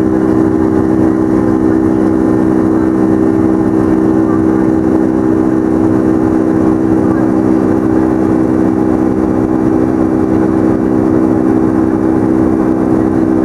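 Boeing 757-200's Pratt & Whitney PW2037 turbofan at climb thrust, heard inside the cabin over the wing: a loud, steady drone with several steady buzzsaw tones over it, the sign of fan blade tips running supersonic at high power.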